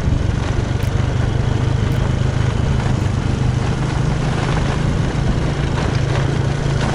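Small engine running steadily at a constant speed, a loud, even low hum with no revving.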